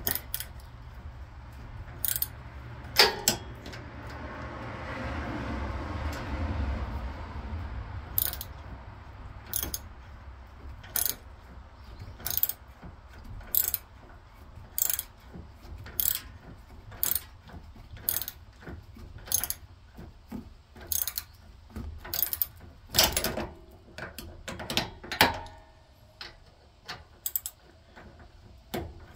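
Socket ratchet wrench clicking as it turns a tight steering-arm nut on a Craftsman YT4000 yard tractor. A couple of louder metal knocks come in the first seconds, then sharp clicks about once a second.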